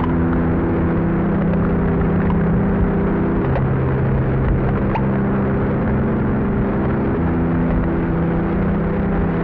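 Dark ambient drone music: low sustained chords that change about every three to four seconds, under a steady hiss of noise with a few faint clicks.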